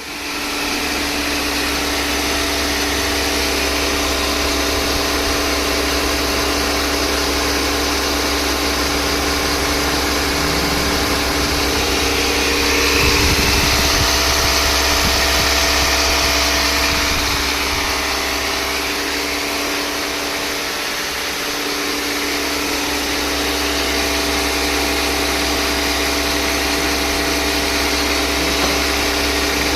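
Kia Seltos diesel engine running steadily. It grows a little louder for a few seconds in the middle, then settles back.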